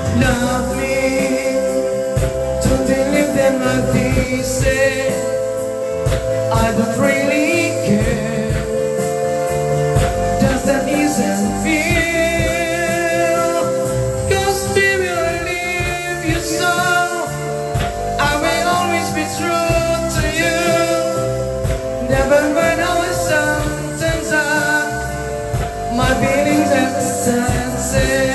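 A man singing a love song into a microphone, holding wavering notes, over backing music of sustained keyboard chords.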